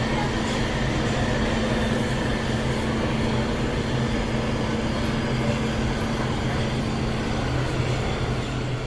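Interior of a metro train car in motion: a steady rumbling roar with a low droning hum, one tone of which drops out about a second before the end.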